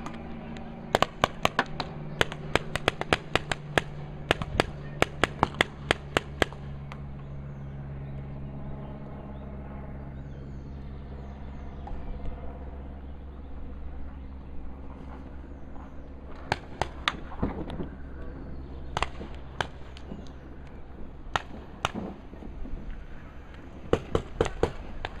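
Paintball markers firing: rapid strings of sharp pops for about the first six seconds, then scattered bursts and single shots later on.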